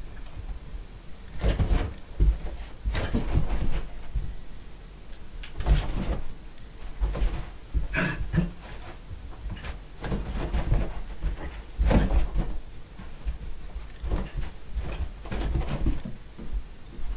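A chihuahua puppy batting and pouncing on a rubber balloon: a series of irregular dull thumps and bumps, a few close together, some of them loud.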